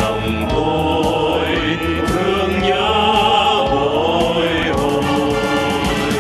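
Mixed choir of men's and women's voices singing long held notes over an amplified backing track with a steady drumbeat.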